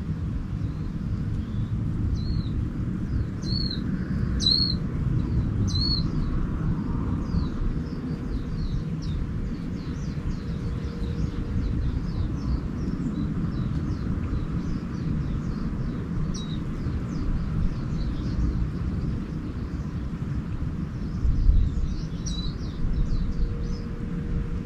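Small birds chirping: four loud, arched chirps in the first few seconds, then many faint quick chirps, and another burst of calls near the end. A steady low rumble runs underneath throughout.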